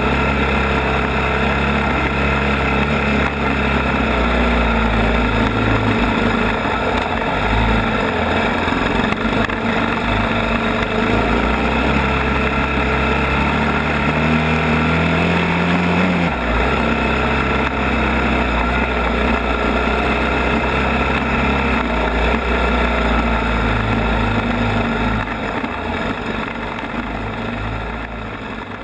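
ATV engine running on a trail ride, its pitch rising and falling with the throttle. The engine climbs steadily for a few seconds, drops suddenly about two-thirds of the way in, then fades away near the end.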